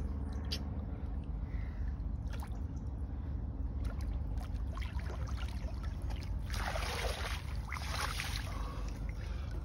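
Shallow lake water sloshing around a large wels catfish being held and released by hand. About six and a half seconds in comes a loud rushing splash lasting a couple of seconds as the fish kicks away. A steady low rumble runs underneath.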